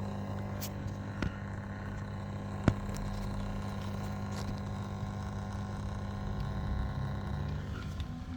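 Beko washing machine drain pump running with a steady electric hum, a few light clicks over it and one sharper click about three seconds in. The machine is draining on its own, a fault the repairer puts down to the control board.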